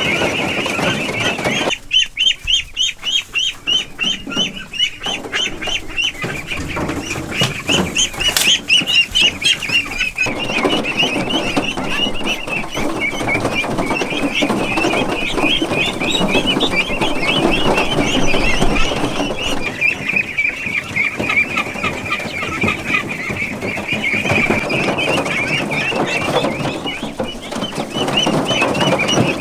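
A flock of chickens calling continuously, many short high calls repeated rapidly and overlapping.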